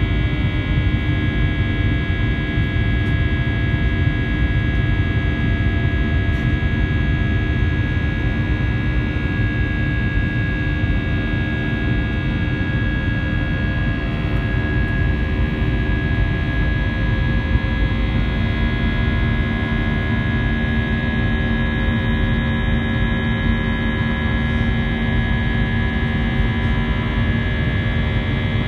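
Airbus A320 jet engines heard in the cabin during the climb after takeoff: a steady drone with a low rumble and many held tones above it, the engines' buzz.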